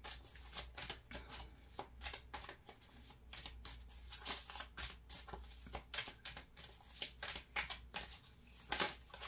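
A deck of cards being shuffled in the hands: a run of soft, irregular card clicks and slaps, with a few louder ones about four seconds in and again near the end.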